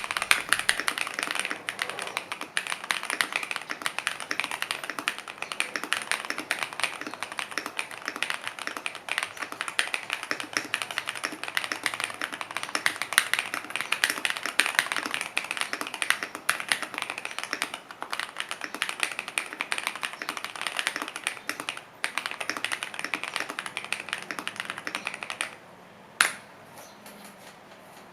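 Fast typing on an Akko MOD007 v1 aluminium gasket-mount mechanical keyboard with stock Akko CS Matcha switches, an FR4 plate, Keychron ABS keycaps and no foam, only a tape mod: a dense run of keystroke clacks that stops near the end, followed by one last keystroke.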